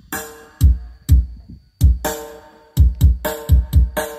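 Electronic dance music with heavy, deep kick drums in a broken pattern with short gaps, played through an active PA sound system: two 8-inch active column speakers and a double 12-inch active subwoofer, in a sound test.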